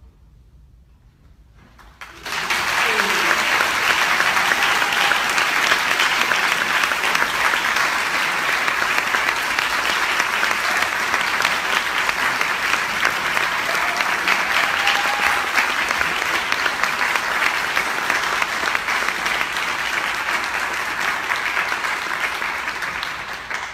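Concert audience applauding for about twenty seconds. The clapping starts suddenly about two seconds in after a short hush, holds steady with a voice or two calling out, and dies away near the end.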